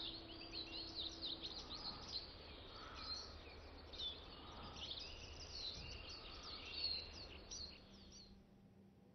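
Faint outdoor ambience of small birds chirping and twittering in many short, quick notes over a low hiss. The birdsong cuts off abruptly shortly before the end.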